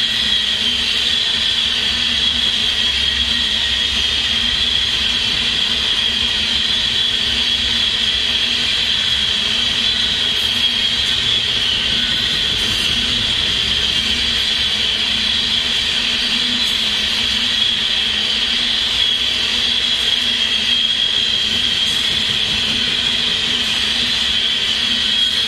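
Freight train of ballast hopper cars rolling steadily past on the rails, a continuous low rumble under a steady high-pitched ring from the wheels.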